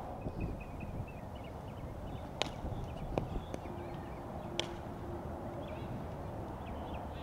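Softball bat hitting balls: two sharp cracks with a brief ring, about two seconds apart.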